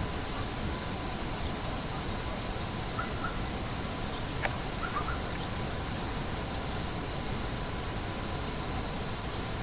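Steady outdoor background hiss with a few faint bird chirps about three and five seconds in, and a single small click between them.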